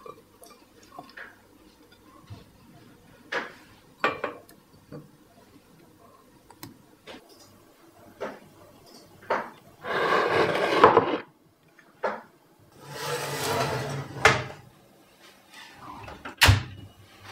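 Kitchen handling sounds: scattered light knocks and clinks against a ceramic baking dish, then two louder scraping noises of about a second each midway through. Near the end an oven door shuts with a heavy thump.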